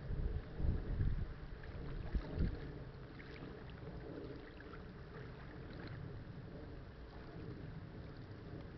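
Wind buffeting a phone's microphone, in low thumping gusts for the first two and a half seconds, then settling into a steady low rush.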